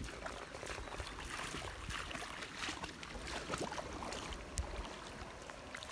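Water splashing and trickling, with scattered small knocks and splashes.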